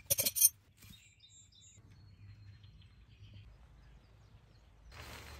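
A quick cluster of sharp plastic-and-metal clicks as a tent pole's end is seated in the tent's corner grommet, then quiet outdoor background with faint bird chirps.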